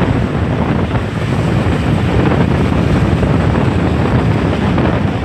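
Strong storm wind from a hurricane buffeting the microphone: a loud, steady, low rumbling noise.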